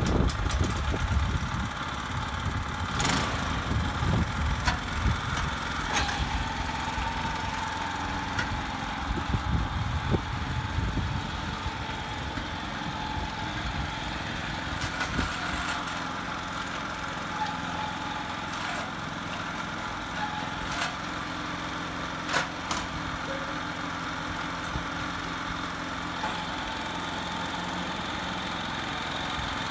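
The small engine of a Mitsubishi MyBoy MMR60 tiller is running. It is heavier and rougher for the first ten seconds or so, then settles to a steadier note. A few sharp knocks sound over it.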